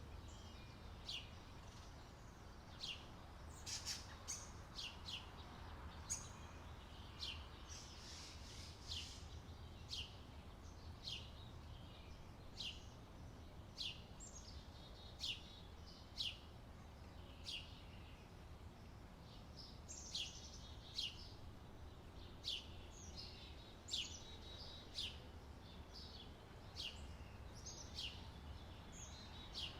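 Birds chirping: short, high chirps that sweep downward, roughly one a second and sometimes overlapping, over a faint steady low rumble.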